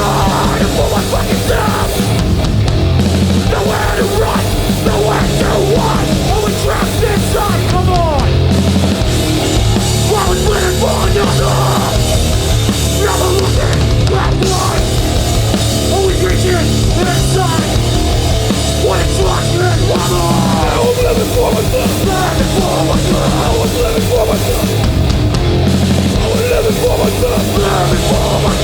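Live hardcore punk band playing loudly: distorted guitars, bass and drums with shouted vocals.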